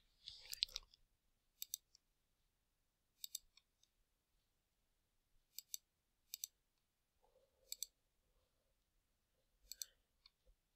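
Faint computer mouse clicks, each a quick pair of clicks, about six times a second or two apart, against near silence.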